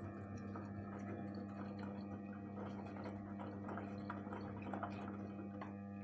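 Gorenje Inverter PowerDrive 8 kg front-loading washing machine mid-wash: a steady humming tone, with water and laundry sloshing in the turning drum and small clicks that stop near the end. It is the strange noise the owner reports from this one-year-old machine.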